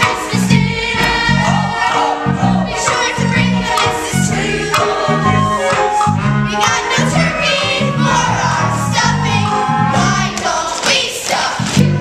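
Chorus of young voices singing a lively show tune together, over an instrumental accompaniment with a steady bass beat.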